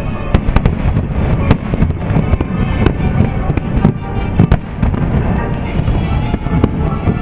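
Aerial fireworks shells bursting in quick succession, many sharp bangs over a continuous low rumble, with music playing underneath.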